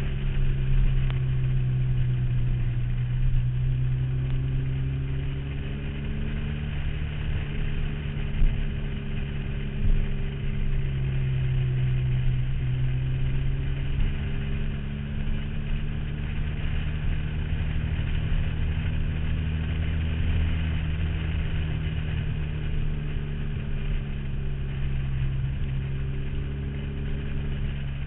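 Motorcycle engine and exhaust at road speed, heard from a camera on the saddlebag. The engine note eases slowly up and down as the bike flows through the bends, under a steady high-pitched rustle of wind on the microphone. Two brief knocks sound near the middle.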